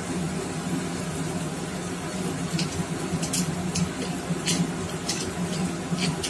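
Pepper mill being twisted by hand, grinding black pepper: scattered short crackles from about two and a half seconds in, over a steady low hum.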